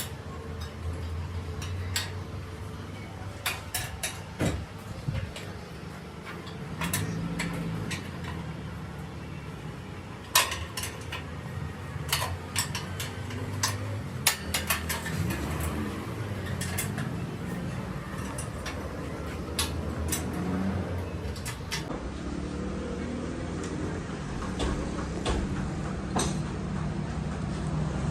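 Scattered sharp metal clinks and knocks of tools and parts being handled, over a low steady running hum.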